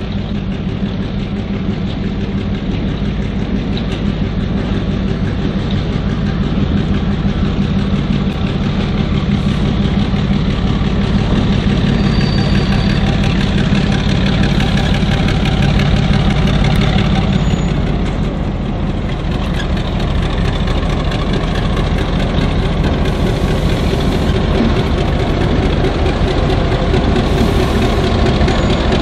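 Diesel locomotive engine running steadily with a deep, even hum. It grows louder, drops briefly about two-thirds of the way through, then comes back up.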